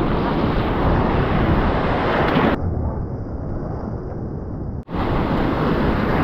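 Rough sea surf and wind on the microphone, a loud steady rush. A little over two seconds in it turns muffled for about two seconds, then snaps back to full after a sudden break.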